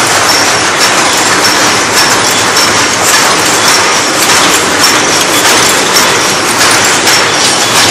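Paper cup forming machine running: a loud, steady mechanical clatter with a regular, repeating click.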